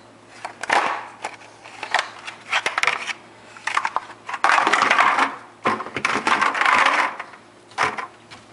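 Plastic ice cube trays clattering and knocking together and against the cupboard as a small child handles them: scattered sharp clicks, then longer scraping rattles in the middle.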